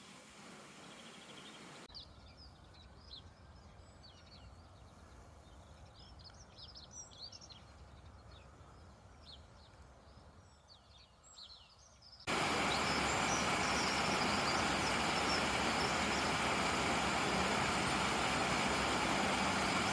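Small birds chirping and twittering in quick short calls over a quiet background, then an abrupt cut about twelve seconds in to a loud, steady rushing noise.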